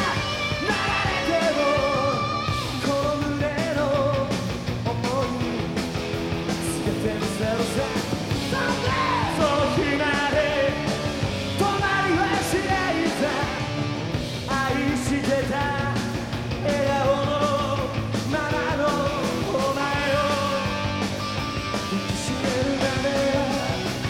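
Rock band playing live: a man singing lead into a microphone over the full band, with bass guitar and drums, continuous and loud.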